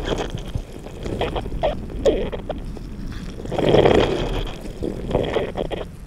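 Wet squelches and creaks of boggy, mossy ground being squished, heard through a contact microphone on a probe wedged into the bog, which gives a weird, monster-like sound. Several irregular squelches come with crackly clicks, the loudest about four seconds in.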